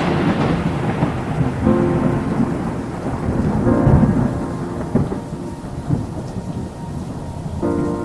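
Thunderstorm sound effect: a rolling thunder rumble fading away over steady rain, with sustained chords of background music coming in under it about two seconds in and again near the middle and end.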